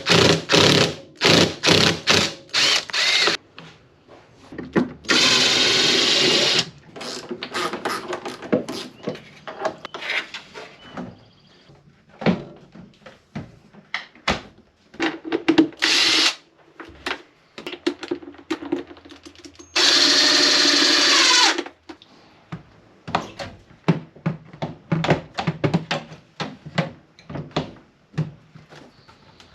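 Power drill/driver run in short bursts to take out and refit the screws of refrigerator door hinges while the door swing is reversed. The longest run dies away with a falling whine. Between the runs come many sharp clicks and knocks of hinges, screws and doors being handled.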